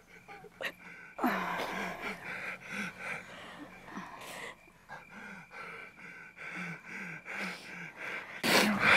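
A woman sobbing, with short catching breaths and gasps every half second or so, and a louder gasp just before the end.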